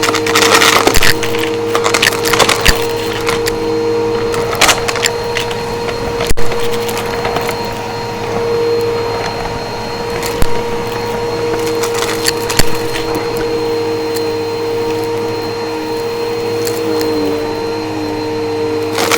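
Upright vacuum cleaner running with a steady motor whine while sucking up crunchy debris, which crackles and clicks irregularly through the machine, with a cluster of crackles about a second in.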